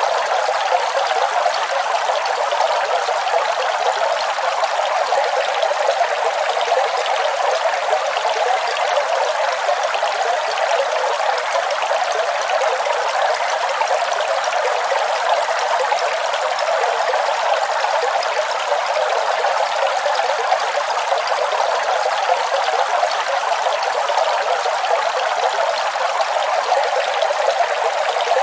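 Waterfall: falling water splashing in a steady, even rush that is unchanging throughout, bright and hissy with almost no deep rumble.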